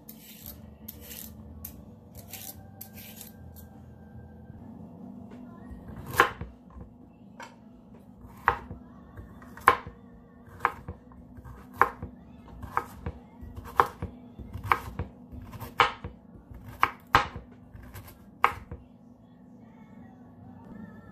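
A few quick scraping strokes as a carrot is peeled, then a kitchen knife chopping carrot on a bamboo cutting board: about fourteen sharp knocks, roughly one every second or less, stopping about two and a half seconds before the end.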